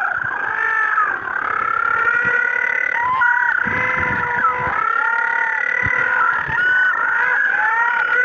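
A chorus of many animals calling at once: overlapping high-pitched calls, some held and some gliding up and down, with no break.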